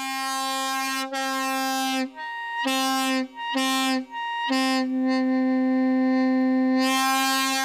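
Chrome single-trumpet truck air horn blowing one steady, buzzy note. It is held for about two seconds, then cut into two short blasts, then held long again.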